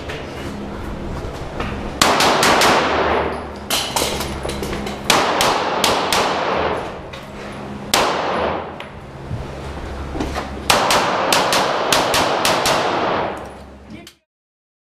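Handgun shots fired in quick strings of two to four, with short pauses between strings. Each shot echoes at length off the surrounding stone walls. The sound cuts off suddenly near the end.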